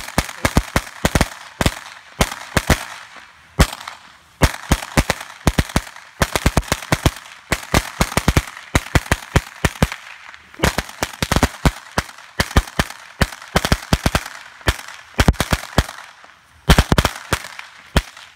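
A string of firecrackers going off in rapid, uneven runs of sharp cracks, with a few short gaps. A dense burst comes near the end, then it stops abruptly.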